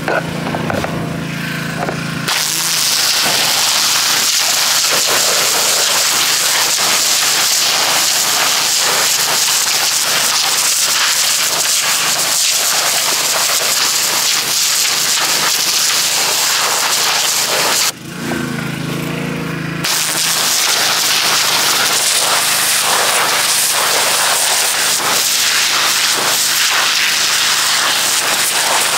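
Pressure washer jetting water into a pile of dirty snow: a loud, steady hiss that starts about two seconds in. It stops for about two seconds near two-thirds of the way through, leaving the machine's engine humming on its own, then starts again.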